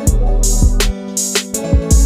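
Background music with a steady beat: deep bass notes under sharp, regularly spaced drum hits.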